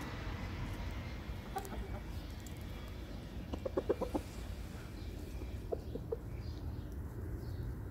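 Rooster clucking as it pecks at the grass: a quick run of about six short clucks about halfway through, then three more a couple of seconds later, over a steady low rumble.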